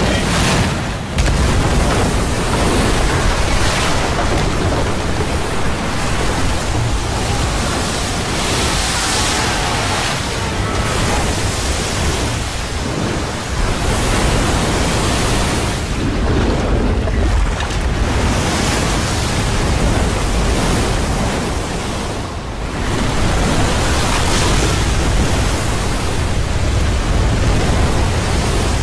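Film sound effect of a flood torrent: water bursting through a timber dam and sweeping down a gorge, a loud, steady rushing with brief dips about a second in and again about two-thirds of the way through.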